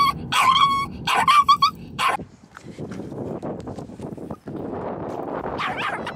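Small Yorkshire terrier whining, several short high-pitched whines and yelps in quick succession in the first two seconds, then quieter; the whining of an anxious dog on a car trip.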